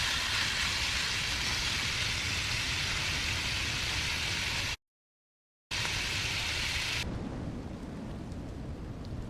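A steady hissing noise, like rain or driven snow. It cuts out completely for about a second midway, then gives way to a quieter low rumble about seven seconds in.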